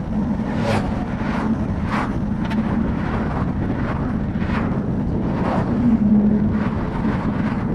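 Wind and road noise from a phone riding on a moving bicycle: a steady low rumble with a string of short whooshes every half second to a second.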